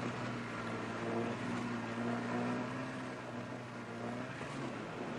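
A low, steady engine hum that fades out about four seconds in, over a faint hiss of surf.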